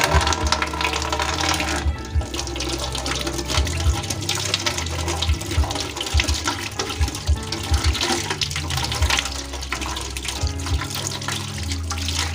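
Water running or pouring steadily, with background music beneath it.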